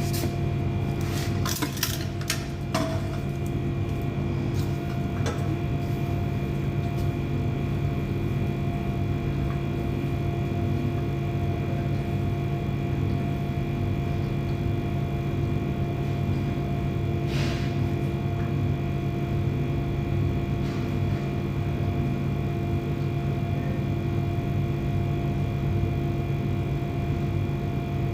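Steady machine hum with several fixed tones, with a few sharp clicks and knocks in the first few seconds and another about two-thirds of the way through.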